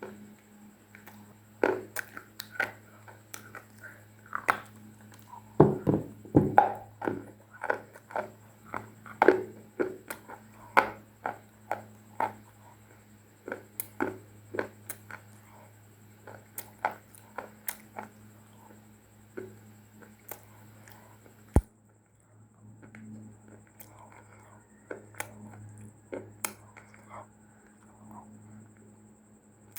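Dry, crunchy clay being bitten and chewed: a run of sharp crunches, about one or two a second, thinning out after about twenty seconds. A steady low electrical hum lies underneath.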